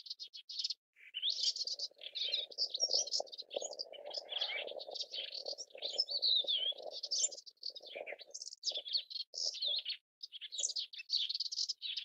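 Melodious warbler singing a fast, unbroken, chattering jumble of varied high notes. Beneath it runs a lower, rougher sound, from about a second in to about seven seconds, then in short snatches.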